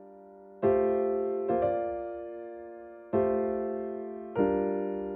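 Background music: slow piano chords, four struck over a few seconds and each left to ring and fade, as the quiet introduction to a song.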